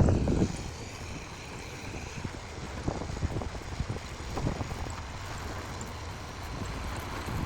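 Heavy machinery's diesel engine running at a steady low rumble, with wind on the microphone. A louder burst at the very start dies away within half a second.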